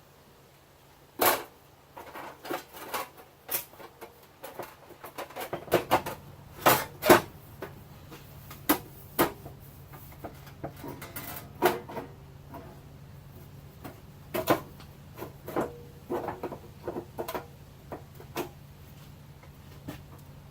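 Irregular knocks and clanks, like tools and sheet metal being handled during bodywork, with a low steady hum that starts about six seconds in.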